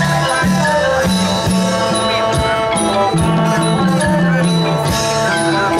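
Isan folk music played live by a pong lang band: melodic instruments over a moving bass line, with a steady beat of about two percussion strokes a second.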